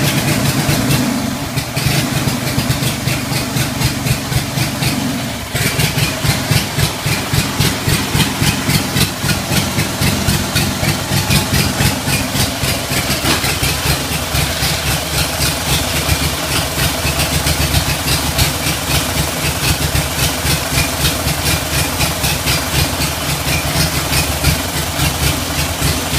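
Lawn mower engine running steadily, with a regular pulsing beat; the sound shifts slightly about five seconds in.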